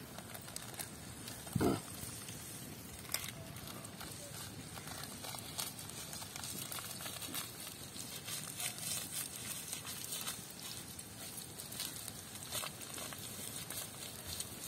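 Mustard seeds crackling and popping in hot coconut oil over a steady sizzle, the pops growing denser in the second half. A short loud animal-like call sounds once, about one and a half seconds in.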